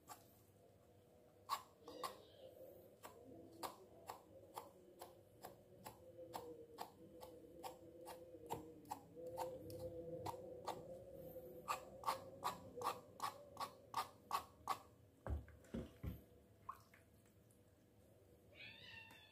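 Knife scraping hair off a piece of tough cow hide in short, even strokes, about two a second. Two dull knocks come about fifteen seconds in, and a cat meows near the end.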